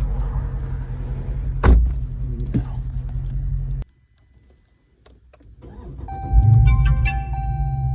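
A steady low hum from the running 2019 Dodge Charger, with a single click a little under two seconds in. About four seconds in the hum cuts out abruptly to near silence, then builds back up over a second or so, and steady high tones join it near the end.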